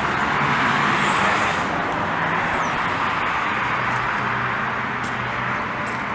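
Steady road traffic noise, an even rushing hiss with a low engine hum underneath.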